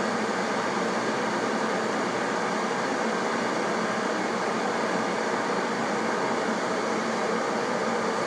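Glass electric kettle heating water: a steady, even hiss and rumble of water coming up to the boil.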